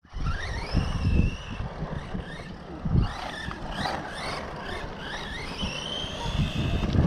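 Brushless electric motor of a ZD Racing Rocket DTK16 1/16 RC desert truck whining, its pitch rising and falling repeatedly with the throttle and holding steady near the end. Heavy wind rumble on the microphone underneath.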